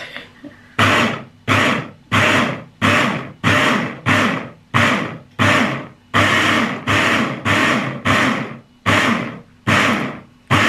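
Electric hand blender on a chopper bowl pulsed in short, even bursts, about one and a half a second, each starting sharply and dying away, chopping a red chili spice paste.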